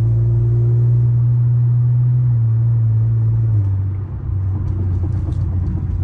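Car engine and exhaust heard from inside the cabin while driving: a steady low drone that steps down in pitch about two and a half seconds in and again near the middle, dips briefly, then goes on rougher. The exhaust has just had a second resonator added to tame its rasp.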